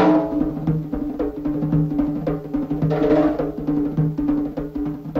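Soundtrack music driven by fast, steady drum beats, about five or six hits a second, over a held low drone. A bright, noisy swell comes at the start and again about three seconds in.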